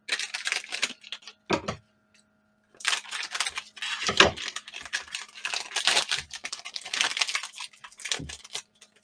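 Plastic cello wrapper of a trading-card pack crinkling and tearing as it is opened, with cards riffled in the hands. The crinkling stops briefly about two seconds in, and a few soft thumps come from the handling.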